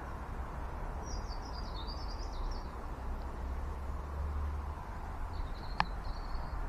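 Small garden birds chirping in quick high twitters, in two spells, over a steady low background rumble; a single sharp click sounds near the end.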